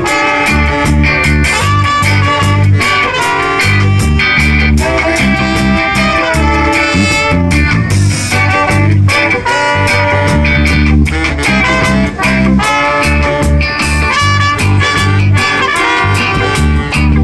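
Live band playing an instrumental passage: brass and guitar over a heavy bass line.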